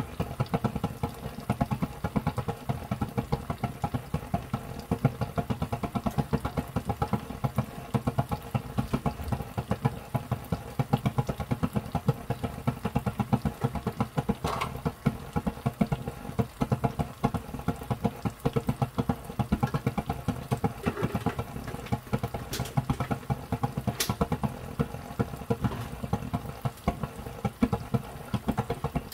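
Thick sweet-and-sour sauce with pork and pineapple bubbling at a simmer in a frying pan, a rapid, irregular run of low pops and plops with a steady hum beneath. A few faint sharp ticks come through in the second half.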